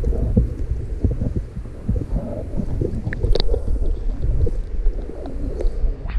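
Muffled underwater rumble from an action camera held under river water in its waterproof housing, with scattered knocks and clicks of water moving against the housing.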